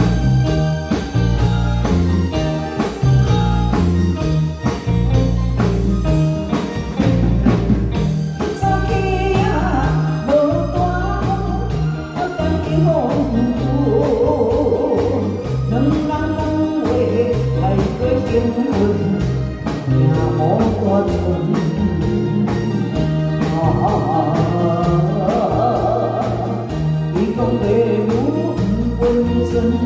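Live band of drum kit, electric bass, electric guitar and keyboard playing a song with a steady beat; a woman's amplified voice comes in singing about nine seconds in and carries the melody over the band.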